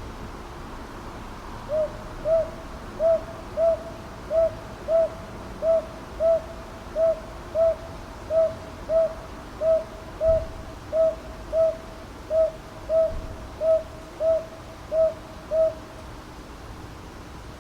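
Northern boobook (brown hawk-owl) calling: a run of about twenty short, even-pitched hoots in loose pairs, roughly three notes every two seconds. It begins about two seconds in and stops a couple of seconds before the end, over a steady background hiss.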